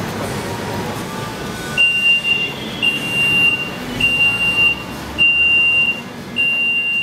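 Gunnebo SpeedGate store entrance gate sounding its alarm: a steady high beep repeating about once a second, each beep lasting most of a second, starting about two seconds in. It warns that someone is trying to pass back out through the entry gate.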